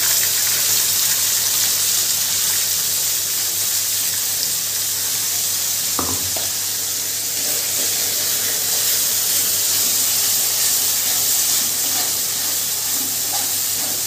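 Ground onion-tomato-ginger paste sizzling steadily as it fries in hot oil in a kadai, stirred with a spatula. A single clunk about six seconds in.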